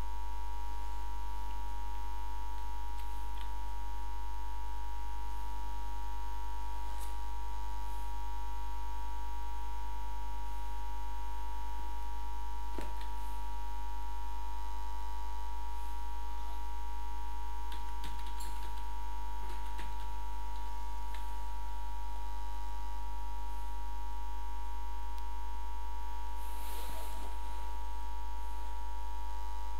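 Steady electrical mains hum, with a few faint clicks scattered through it and a brief burst of noise near the end.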